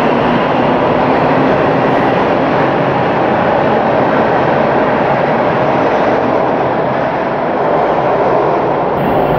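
Bombardier T1 subway train running through an underground station: steady, loud wheel-on-rail noise from the moving cars, echoing off the platform walls, easing slightly near the end.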